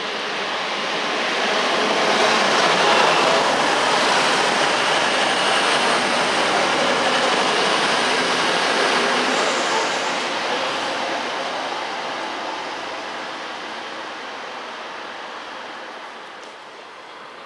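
A train passing through a station: its running noise builds over the first couple of seconds, stays loud for several seconds, then fades away as it recedes.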